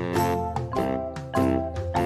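Background music: a light tune with notes struck on a steady beat over a bass line.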